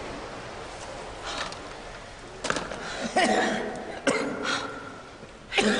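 A person's short gasps and coughs, several brief breathy vocal sounds in the second half.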